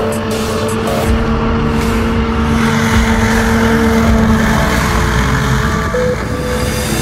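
Small leisure hovercraft's engine and fan running at speed: a loud, steady hum over a rushing noise. The hum drops away about halfway through, leaving the rushing noise.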